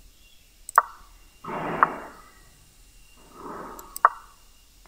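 Online chess game's piece-move sound effect: two short, sharp clicks about three seconds apart as moves are played. Between them come two soft breaths out.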